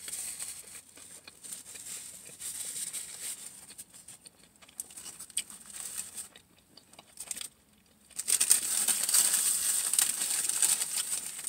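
Subway paper sandwich wrapper crinkling as it is handled, in irregular fits at first, then louder and near-continuous from about eight seconds in.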